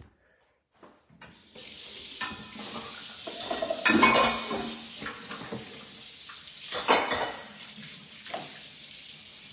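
Pots, pans and utensils clattering in a kitchen over a steady hiss that starts about a second and a half in, with the loudest clatters around four and seven seconds in.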